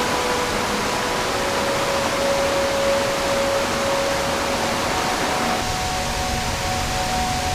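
Mountain stream water rushing steadily, with a few faint steady tones above it.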